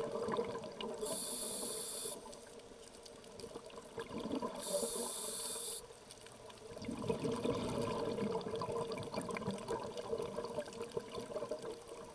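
Scuba diver breathing through a regulator underwater: two short hissing inhalations, about a second in and about four and a half seconds in, and the crackling rush of exhaled bubbles, loudest at the start and again from about seven seconds on.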